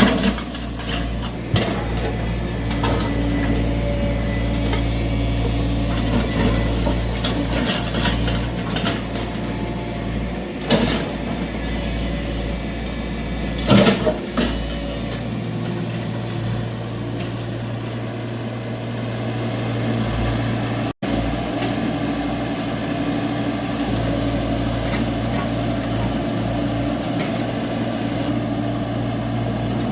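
Tata Hitachi EX70 excavator's diesel engine running steadily at working revs while loading a truck, with a few sharp knocks and clatters about eleven and fourteen seconds in.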